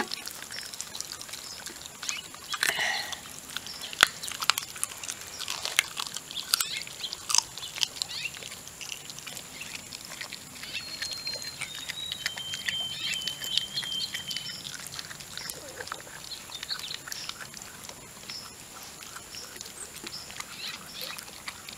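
Icelandic Sheepdog puppies chewing and crunching raw chicken wings: irregular wet smacking and sharp crunching clicks, a few louder crunches now and then.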